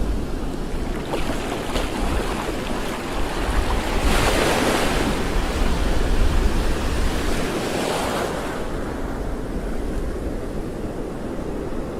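Water washing with wind buffeting the microphone. About four seconds in, a louder rush of water swells and dies away over roughly four seconds.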